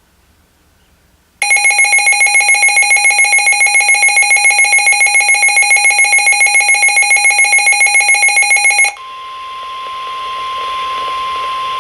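Weather radio sounding a severe thunderstorm warning alert. About a second and a half in, its loud, rapidly pulsing electronic alarm starts and runs for about seven seconds. Then comes the NOAA Weather Radio 1050 Hz warning tone, a single steady tone over radio static, which signals an incoming warning broadcast.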